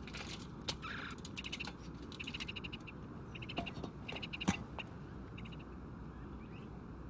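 Red-cockaded woodpeckers giving short, rapid chattering calls several times, over a low steady rumble. There are a couple of sharp knocks, one about a second in and a louder one about halfway through.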